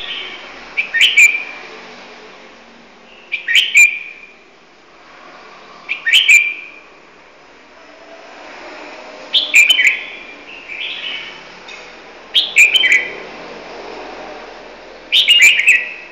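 Caged songbird singing short, loud phrases about every three seconds, six in all.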